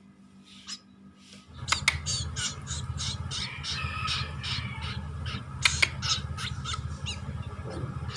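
White-breasted woodswallow nestling making rapid, harsh begging squawks, about two or three a second, while being hand-fed crickets. A steady low rumble and a couple of sharp clicks start about a second and a half in.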